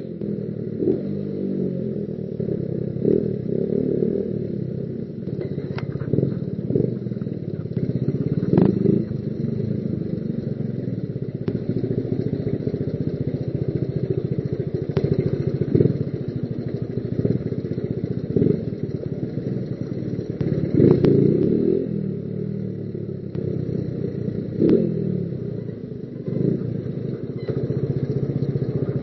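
Motorcycle engine running steadily on the move, with scattered short knocks and clatters over it.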